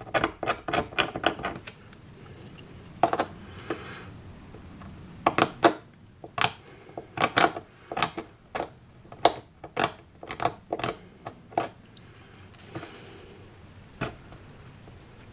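Irregular sharp clicks and light taps of small hard parts being handled: a model railway signal's metal forks being worked into place under the track. The clicks come in clusters, with a lone one near the end.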